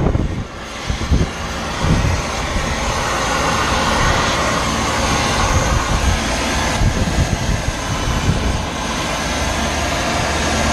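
Brazing torch flame hissing steadily against a copper refrigerant line joint on a scroll compressor, heating the braze to unsweat the line so the old compressor can come out. The hiss builds over the first couple of seconds and then holds even.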